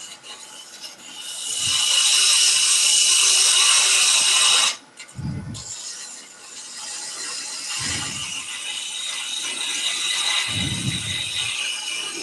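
Turning tool cutting a spinning wooden pepper grinder blank on a lathe: a steady high scraping that breaks off for a moment near the middle and then resumes more softly, with a few low thumps in between.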